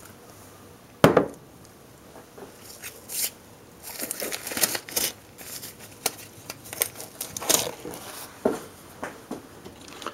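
Handling noises at a workbench: a sharp knock about a second in, then irregular crinkling, rustling and clicking.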